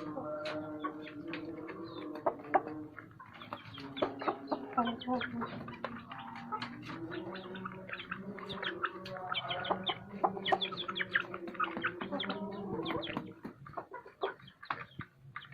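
Village chickens clucking and calling, the calls rising and falling in pitch, with many short sharp clicks in between.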